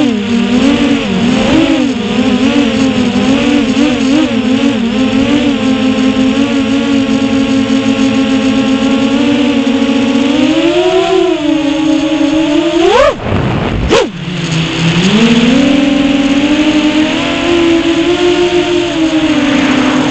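Brushless motors and props of a 6-inch FPV quadcopter (2407 1850KV motors on 6S, Ethix K2 props) whining, the pitch wavering up and down with the throttle. About thirteen seconds in the whine sweeps sharply up on a throttle punch, cuts out for about a second with one short blip, then comes back and climbs again.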